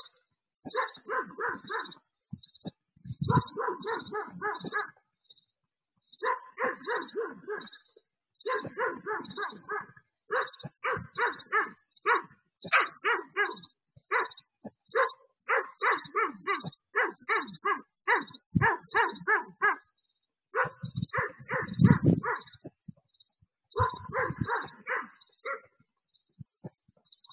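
Dog barking in bouts of quick, repeated barks with short pauses between bouts, picked up by a security camera's built-in microphone.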